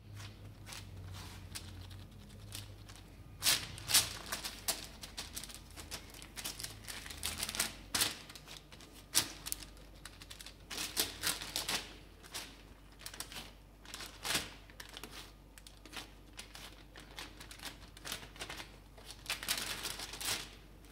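Baking paper crinkling and rustling under hands as raw ground-beef patties are pressed flat on it, with many irregular soft crackles and taps.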